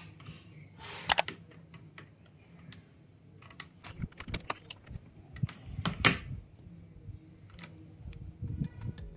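Irregular plastic clicks and clacks from an EvoFox Ronin TKL mechanical keyboard being handled, with a loud click about a second in and a denser run of clicks and low knocks from about four to six seconds in.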